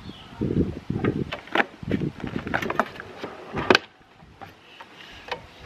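Metal clicks and knocks from a Minn Kota Ultrex trolling motor's aluminium mount being handled and pivoted up out of its stowed position, with a louder clunk a little before four seconds in, then quieter.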